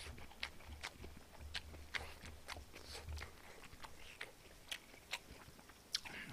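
Faint chewing and mouth noises of a man eating, close to the microphone: short sharp clicks and smacks about every half second, over a low steady hum.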